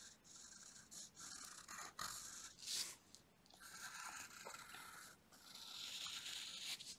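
Graphite pencil scratching across paper in faint strokes: several short strokes, then two longer ones in the second half.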